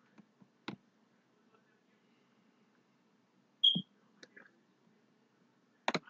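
Computer mouse clicking a few times in a quiet room, with a brief high blip about three and a half seconds in and a double click near the end.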